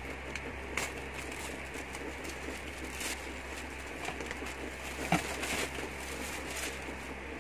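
Fingers handling a cardboard box and its paper packing, giving a few short faint rustles and clicks over a steady low room hum.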